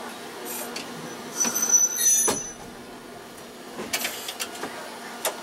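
Fukui Railway 770-type tram standing at a platform with its doors opening: a burst of air and clatter with a high thin tone about a second and a half in, then a few clicks and knocks over a low steady hum.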